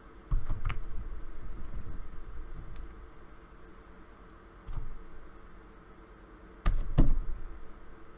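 Close-up clicking and knocking: a run of quick clicks and soft knocks for about two seconds, a single knock near the middle, and a louder cluster of knocks about seven seconds in.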